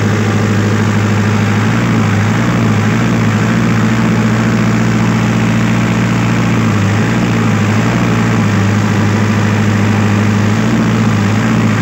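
Diesel engine idling steadily, with its tone wavering slightly a few times, while air is bled from the fuel-injection pump.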